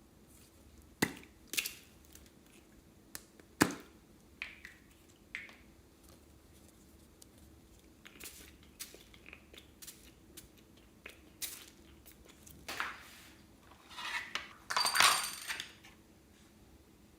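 Small objects and containers clicking, knocking and clinking as things are handled for mixing into slime: two sharp knocks early, scattered light ticks, and a longer clinking, rustling burst near the end.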